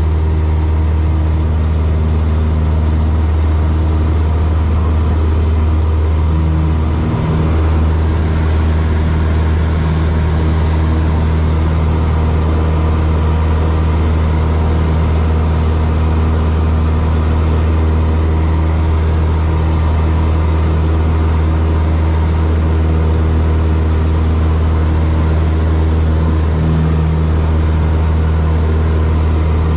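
Single-engine light aircraft's piston engine and propeller, heard from inside the cabin, running as a steady drone through the takeoff roll and climb-out.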